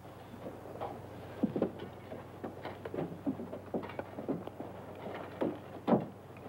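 Scattered light taps and knocks at an irregular pace over a faint steady low hum.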